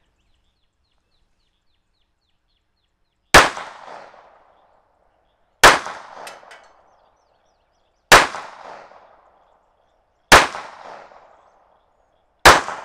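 Five pistol shots from a Colt 1903 Pocket Hammerless firing .32 ACP, the first about three and a half seconds in, then roughly every two seconds. Each is a sharp crack with a short echoing tail.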